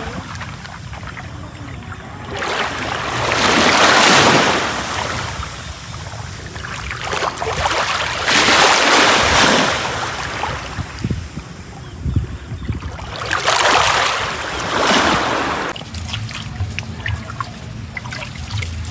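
Sea waves breaking on a beach: three swells of surf, one about every five seconds, each rising and falling away.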